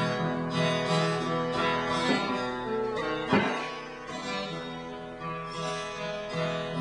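Live acoustic folk ballad accompaniment: a plucked string instrument, guitar-like, playing an instrumental passage between sung verses, with sustained notes and no singing.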